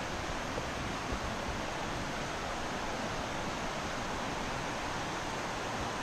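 A rocky river running over rapids: a steady, even rush of water.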